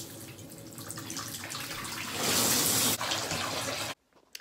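Bath tap running, water pouring into a bathtub. It grows louder for a moment past the middle and cuts off abruptly near the end.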